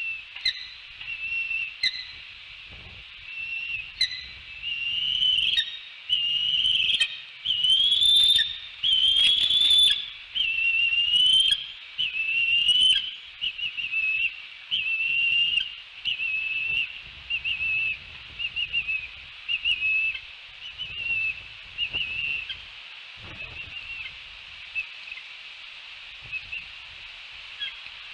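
Bald eagles calling: a long series of high, whistled chirps, about one a second, rising in pitch and loudest around eight to ten seconds in, then trailing off into shorter, quieter chirps. Wind rumbles low on the microphone.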